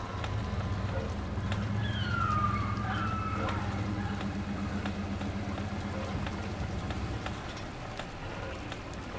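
Distant thunder: a low rumble that swells about half a second in, is loudest a couple of seconds later and rolls away over the next few seconds. A few high gliding calls sound in the middle.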